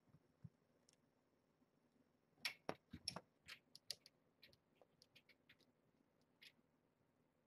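Faint, scattered light clicks and ticks from kittens playing in a wire-panel pen, with a quick flurry about two and a half to four seconds in and a few sparser ticks after.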